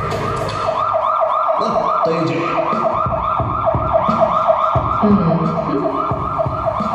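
Emergency-vehicle siren in fast yelp mode, a rising-and-falling wail repeating about four times a second, with lower sounds beneath it.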